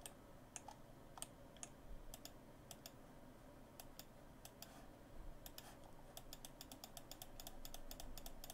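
Faint, irregular clicking of a computer mouse, with button clicks and scroll-wheel notches coming in clusters and a lull partway through.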